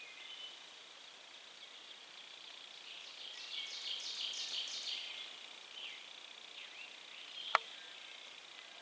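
Songbirds calling in spring woods, with a louder run of rapid repeated notes from about three to five seconds in. A single sharp click comes about seven and a half seconds in.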